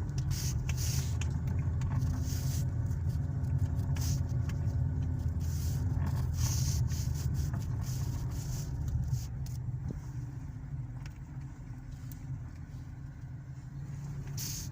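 A car driving: a steady low engine and road rumble that eases off a little in the second half.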